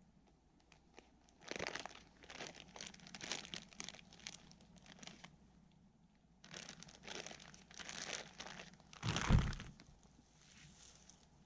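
A food wrapper crinkling as it is opened and handled, in bursts of rustling, with a heavier thump about nine seconds in.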